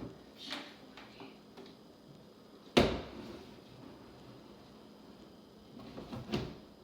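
Handling knocks and clunks of a hard object being moved about: a few light taps early, one sharp knock about three seconds in, and a pair of knocks near the end.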